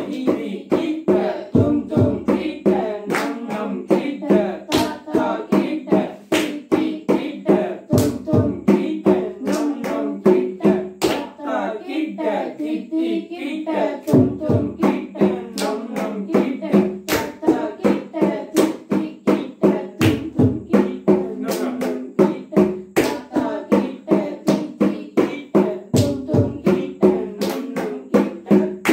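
Mridangam played in a fast, even stream of strokes at third speed, with voices reciting the drum syllables (tha, dhi, thom, nam) and hands clapping the beat. A deep bass stroke sounds roughly every six seconds.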